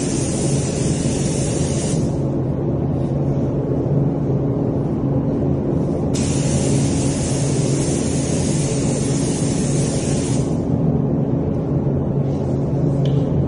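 Air spray gun spraying primer in trigger pulls: a hissing spray for about two seconds at the start, a longer pass of about four seconds from six seconds in, and a short burst near the end. A steady low hum runs underneath.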